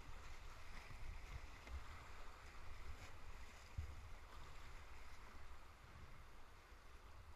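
Whitewater of the Table Saw rapid on the Ocoee River rushing, a faint, steady hiss with an uneven low rumble underneath.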